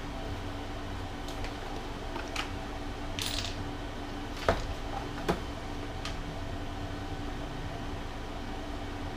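A few sharp knocks and clicks of parts being handled and fitted, the two loudest about four and a half and five and a half seconds in, with a brief scrape a little past three seconds, over a steady background hum.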